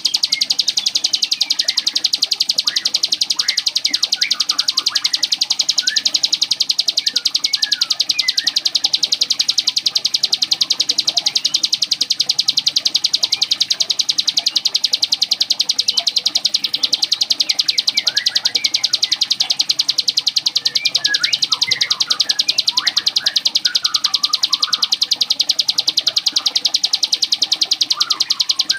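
Ciblek gunung (a prinia) singing a continuous, rapid buzzing trill, the "ngebren" song likened to a sewing machine, held without a break. Shorter scattered chirps sound lower beneath it.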